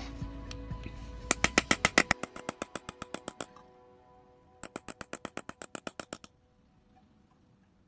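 Rapid light hammer taps on a small chasing chisel working a metal plate, about eight taps a second in two runs of roughly two seconds each, with a pause between.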